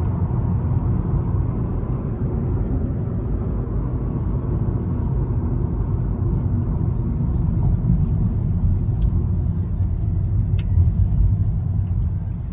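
Steady low rumble of a truck being driven, engine and road noise heard from inside the cab.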